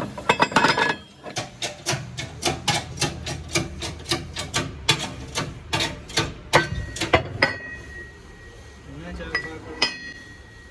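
A hammer striking metal repeatedly, about four blows a second for several seconds, some blows leaving a short metallic ring, then two last strikes near the end.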